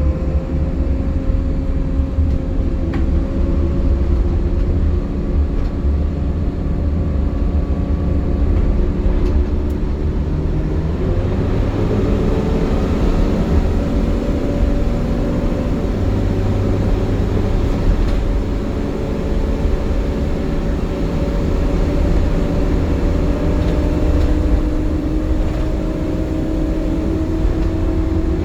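Optare Solo midibus heard from on board, its engine running with a steady whining drone that is called "hoovering", a vacuum-cleaner-like sound the bus makes in warm conditions. The tone breaks about eleven seconds in, then climbs slowly in pitch as the bus pulls away and picks up speed.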